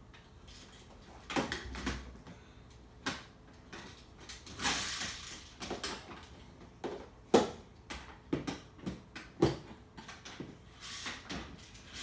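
Irregular clicks and knocks of hard objects being handled, with a scraping rustle lasting about a second around five seconds in.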